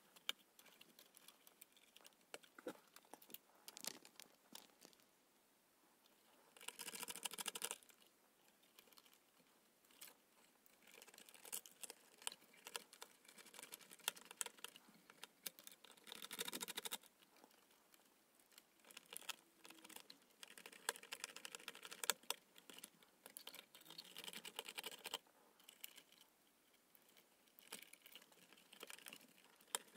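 Faint handling noise of wiring work: scattered small plastic clicks as connectors are plugged into a control board, and rustling of wires and leads as wire terminals are screwed down with a small screwdriver, with a few longer stretches of rustling.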